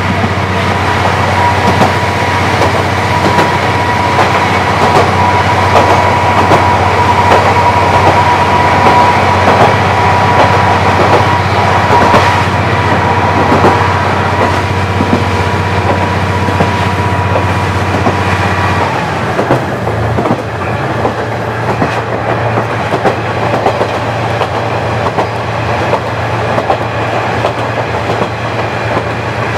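KiHa 40 diesel railcar running along the line: steady engine hum with a high whine and the wheels clicking over rail joints. About two-thirds of the way through the whine stops and the engine note changes.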